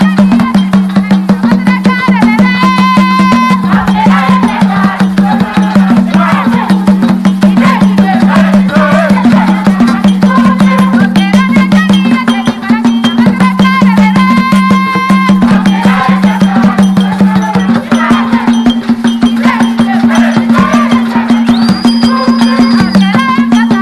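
Traditional drumming on wooden barrel drums, a fast, dense beat played for a dance troupe, over a steady low drone. High wavering calls rise above the drums twice, a couple of seconds in and again about halfway through.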